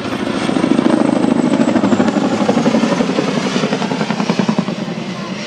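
Boeing CH-47 Chinook's tandem rotors beating rapidly in a loud close pass. The sound swells about a second in and eases off near the end.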